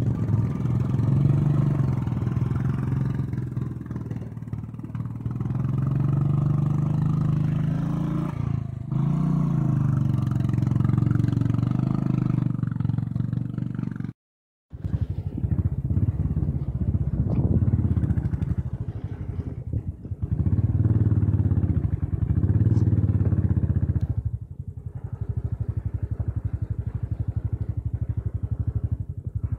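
Royal Enfield Bullet 500's single-cylinder engine running and revving up and down repeatedly as the motorcycle rides over a muddy, rocky track. The sound cuts out completely for about half a second around the halfway point.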